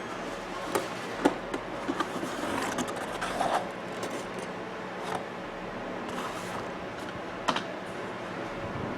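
Light clicks and taps of small hard clock parts being handled, with a brief scrape about three seconds in, as the clock's glass is lifted out of its plastic surround.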